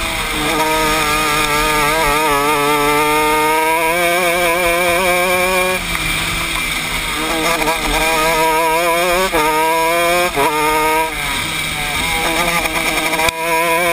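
125cc Honda two-stroke shifter kart engine at racing speed, heard from on board. Its pitch climbs under acceleration and drops sharply several times as the throttle is lifted for the bends, with quick rises in between, over wind rush.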